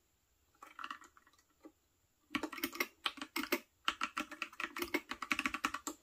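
Typing on a Freewrite Smart Typewriter's mechanical keyboard. A few scattered key clicks come first, then a quick run of keystrokes starts about two seconds in and pauses briefly partway.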